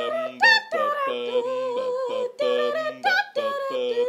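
A voice singing a wordless tune a cappella, in long held notes with short breaks and a quick upward swoop about half a second in.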